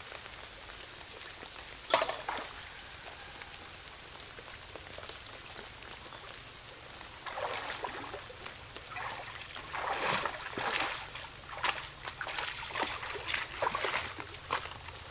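Hands splashing and sloshing in shallow stream water: one sharp splash about two seconds in, then a busy run of splashes through the second half, over the steady trickle of the flowing stream.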